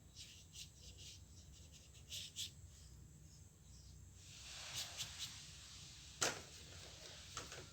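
Faint strokes and light ticks of a paintbrush working on watercolour paper, with a soft brushing swell about four seconds in and one sharper tap a little after six seconds, over a low steady hum.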